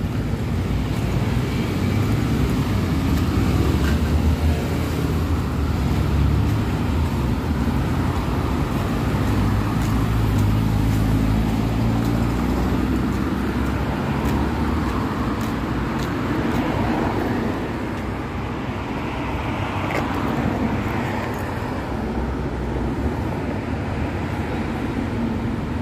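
Road traffic: cars passing on the street, a continuous rumble that is loudest in the first half and eases later on.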